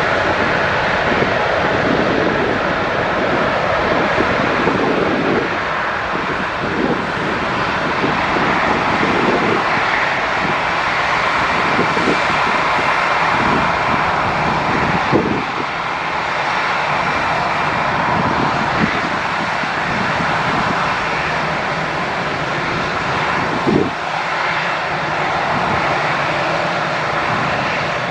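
Jet airliner engines making a steady, loud roar. Irregular low gusts of wind buffet the microphone.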